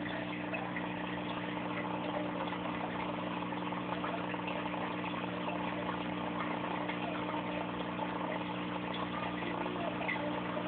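Steady electric hum of an aquarium pump heard underwater, over an even hiss of moving water.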